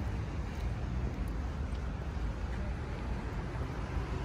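Ambulance engine running with a steady low rumble, over street traffic noise.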